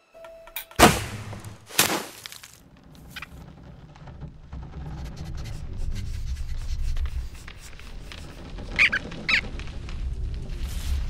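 Cartoon sound effects: two sharp hits about a second apart, then a low rumble that grows louder, with two short high squeaks near the end.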